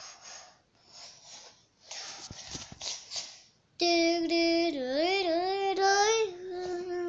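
A child's voice making several breathy hissing bursts, then, from about four seconds in, a loud, long, high-pitched vocal "aaah" that wavers up and down in pitch.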